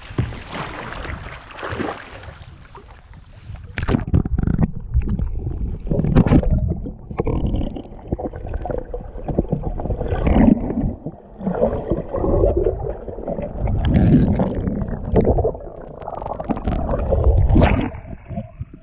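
A sea kayak capsizing: a rush of splashing water at first, then muffled underwater gurgling and churning with repeated loud surges while the kayaker hangs upside down, until he comes back up near the end.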